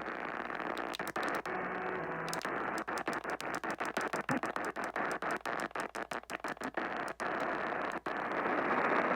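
Radio static: a steady hiss from a radio receiver picking up no clear broadcast, broken by many brief dropouts that come thickest through the middle.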